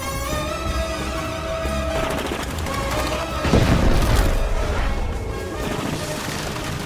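Film action soundtrack: an orchestral score over rapid gunfire. About three and a half seconds in comes an explosion as a flying craft crashes, the loudest moment.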